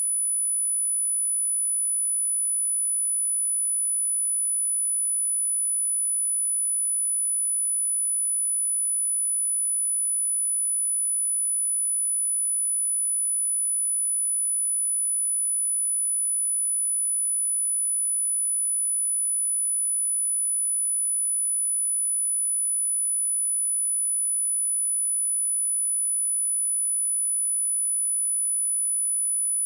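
Steady, high-pitched pure test tone: a 9955 Hz sine wave held at a constant level, used for speaker testing and for shaking water and dust out of a speaker.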